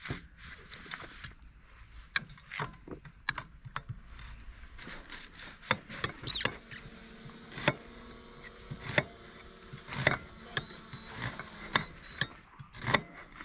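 Irregular knocks and clicks of a knife chopping vegetables on a cutting board, about one or two strokes a second with short pauses.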